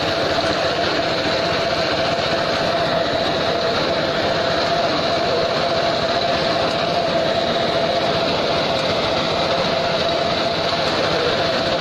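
Walk-behind mini tractor reaper running steadily as it cuts a green fodder crop: the small engine and the cutter bar working at a constant pitch and level.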